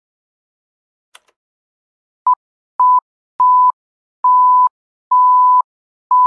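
Film-leader countdown beeps: a single high steady tone sounded six times, starting about two seconds in, with each beep longer than the last and the final one held about a second.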